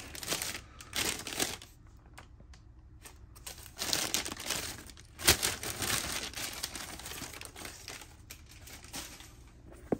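Tissue-paper wrapping crinkling and rustling in uneven bursts as a sneaker is unwrapped and lifted out of its box. A sharp, louder crackle comes about five seconds in, and the rustling dies down near the end.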